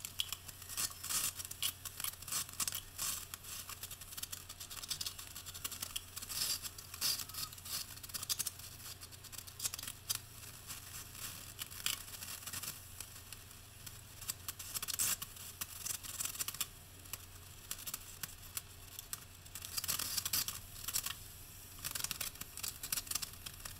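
Quick, irregular scraping and scratching of a trowel spreading thinset over Kerdi-board waterproofing board, mixed with the crinkle of the Kerdi-band membrane strip being pressed into the wet thinset.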